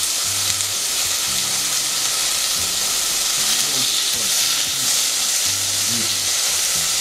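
Bite-sized chicken thigh pieces sizzling in hot oil in a stainless steel pot as they are stir-fried with long cooking chopsticks: a steady frying hiss.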